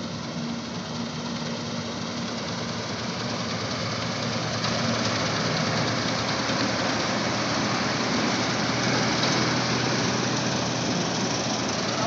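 Combine harvester running while it cuts wheat: a steady drone of the engine mixed with the mechanical noise of the turning reel and header. The sound grows louder about four and a half seconds in and then holds.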